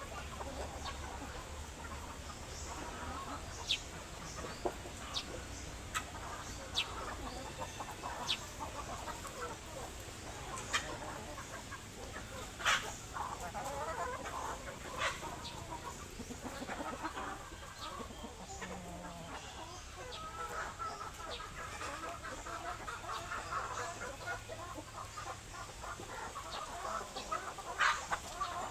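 A flock of chickens clucking continuously, with short sharp sounds scattered through.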